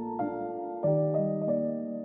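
Soft background piano music, with new notes and chords sounding every half second or so.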